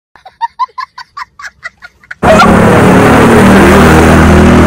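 An edited-in comic sound effect: about a dozen quick, high-pitched chirping notes over dead silence for about two seconds. Then a loud, dense, steady din cuts back in.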